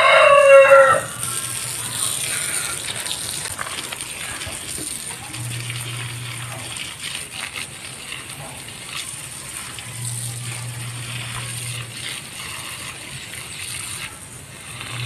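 A rooster crows loudly, ending about a second in, then a garden hose sprays water onto soil and plants with a steady hiss.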